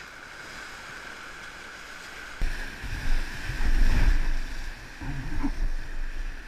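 Whitewater of a river rapid rushing steadily around an inflatable raft. About two and a half seconds in, the sound suddenly turns louder, with gusts of wind buffeting the microphone over the water noise.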